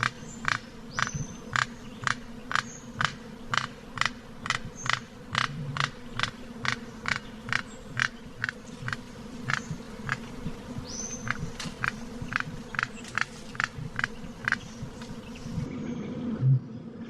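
A bird's call: a long, even series of sharp clicks, about two and a half a second, with a brief high whistle twice. The clicking stops shortly before the end.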